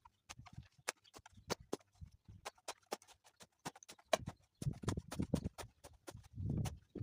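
Hand tools working wet concrete: a string of sharp knocks and taps, several a second, with rougher scraping bursts about four and a half seconds in and near the end.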